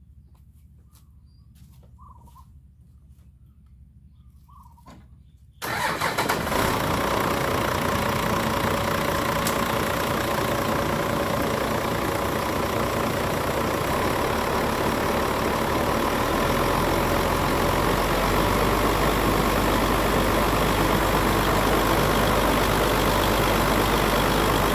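Tractor engine starting suddenly about five and a half seconds in, then running steadily while driving a PTO water pump to drain a flooded pond. A deeper steady hum joins about ten seconds later.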